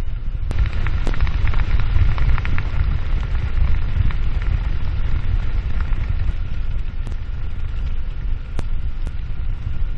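Wind buffeting the microphone of a bicycle rider's camera on a downhill run, over the rolling rumble of tyres on a rough asphalt lane. For the first few seconds there is a crackling, grit-like patter, and a few sharp clicks stand out, two near the start and two near the end.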